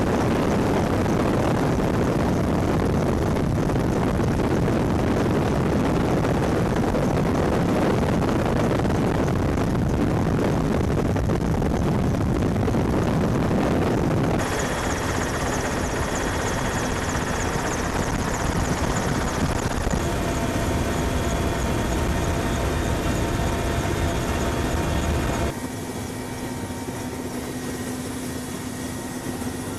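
Loud, steady engine noise, aircraft-like, broken by abrupt cuts about 14 and 25 seconds in. After the first cut, steady whining tones sit over the noise; after the second, it is quieter.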